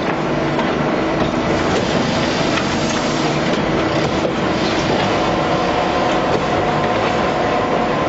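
Heavy machinery running steadily with a constant din and a low hum, with gravel rattling as a wheel loader tips it into a steel skip hopper.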